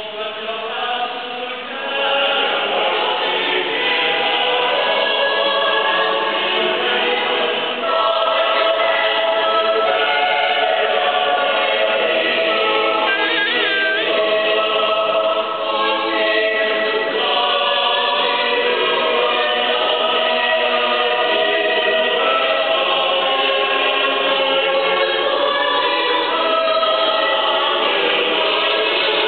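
Mixed choir of men's and women's voices singing, coming in softly and swelling to full voice within the first two seconds, then holding a steady level.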